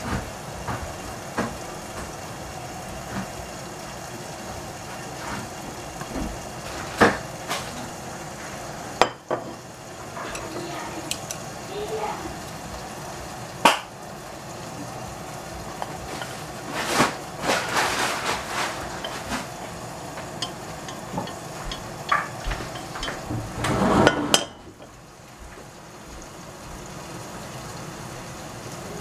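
Stainless steel saucepan and wooden chopsticks clinking, knocking and scraping as stir-fried bok choy and egg is tipped out and pushed onto a plate, with clusters of clatter in the second half. A steady hiss underneath drops away suddenly near the end.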